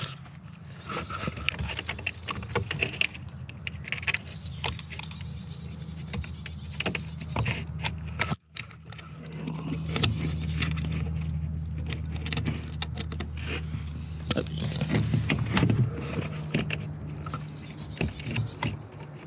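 Scattered clicks, taps and knocks of an RVLock keyless handle's plastic and metal parts being handled and fitted into an RV cargo-bay door, over a steady low hum. The sound cuts out for a moment about eight seconds in.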